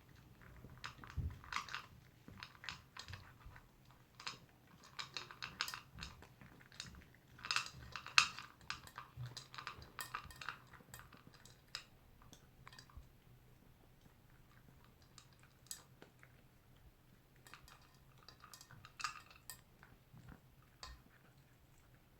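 Toy poodle eating its breakfast: bursts of chewing with quick clicky crunches, dense through the first half and sparser later on.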